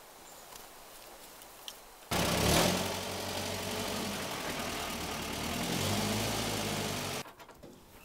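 Quiet at first. About two seconds in, an engine starts to be heard running steadily, its pitch shifting a little, and it cuts off abruptly about seven seconds in.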